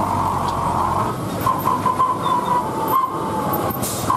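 Heavy trucks crawling through a hairpin bend: engines running under a steady, wavering high-pitched squeal over a low rumble.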